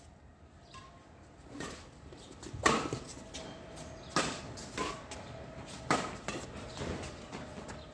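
Badminton rackets hitting a shuttlecock back and forth in a rally: a string of sharp hits, roughly one every second to second and a half, starting a little way in, the loudest about a third of the way through.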